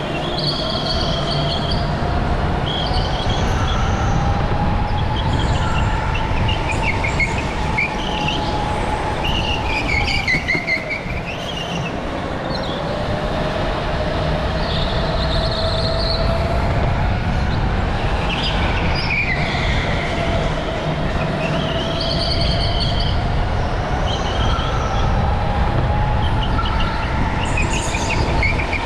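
Go-kart at racing speed on a polished concrete floor: the motor's whine climbs and falls as the kart brakes and accelerates through the corners, with tyres squealing in bursts as it slides through the turns over a steady low rumble.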